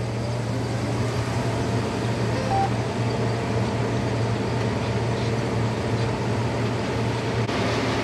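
John Deere combine harvester running under load while harvesting downed corn: a steady, even low mechanical drone of the engine and threshing machinery.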